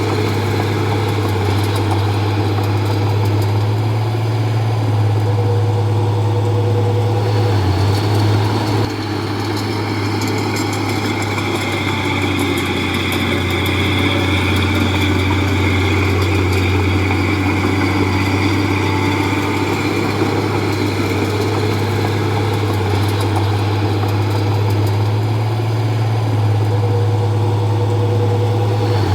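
Komatsu D31P bulldozer's diesel engine running steadily, with a short dip in level about nine seconds in and a higher whine joining it a few seconds later.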